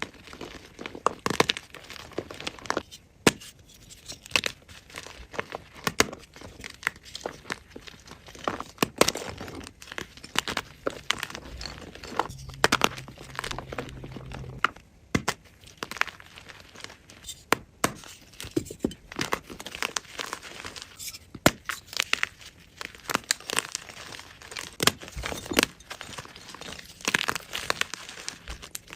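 A block of gym chalk (magnesium carbonate) being crushed and crumbled by hand: an irregular run of sharp crunches and crackles, some much louder than others.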